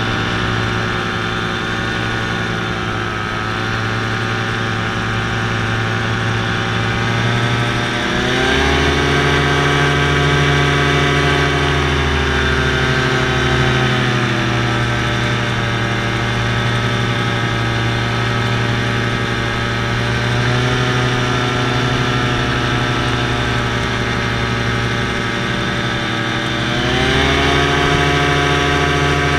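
Paramotor engine and propeller running steadily in flight. The pitch rises about eight seconds in, eases back over the following seconds, and rises again near the end.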